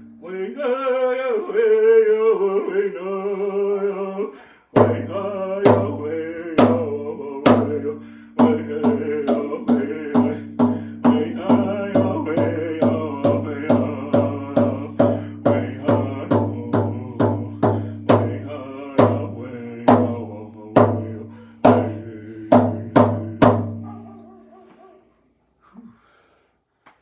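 A man singing while beating a hide-covered hand drum with a stick beater. The voice carries alone for the first four or so seconds, then the drum comes in with a steady beat a little under two strokes a second under the singing. Both stop about 24 seconds in.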